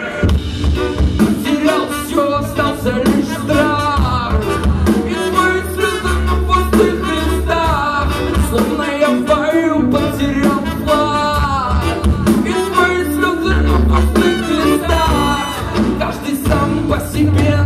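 Live ska-reggae rock band playing, with electric guitar, bass and drums and a melody line over the top.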